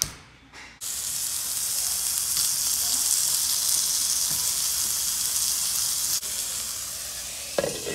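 Raw ground-beef patty with onion frying in a hot cast iron skillet: a steady sizzle that starts abruptly about a second in. A couple of light knocks near the end.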